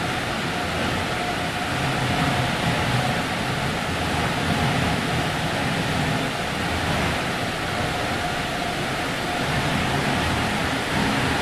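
Car wash running: a steady rush of spraying water with a faint machine hum underneath.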